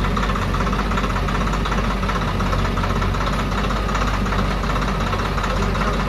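Diesel engines running steadily, from a JCB 3DX backhoe loader at work beside a tractor trolley and the tractor idling, with no separate knocks standing out.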